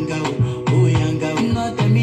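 Dance music with a steady beat and a deep bass line.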